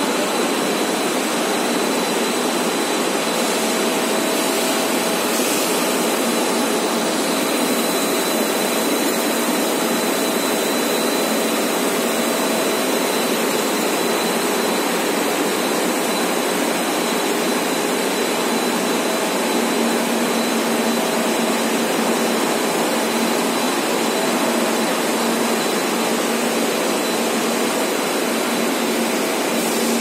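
Rubber profile extrusion and vulcanization line running: a loud, steady rushing machine noise with a thin high whine held throughout.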